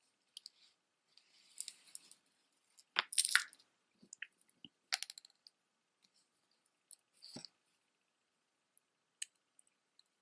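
Metal necklace chain and silver-tone pendants being handled, with short scattered clinks and rustles, the loudest about three seconds in.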